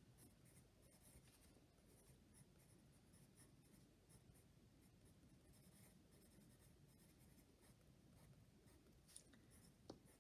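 Faint scratching of a pencil writing on sketchbook paper, with two light ticks near the end.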